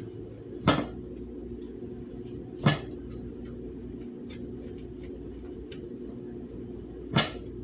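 Three sharp clinks of a dish being handled: about a second in, again two seconds later, and once more near the end. A steady low hum runs underneath.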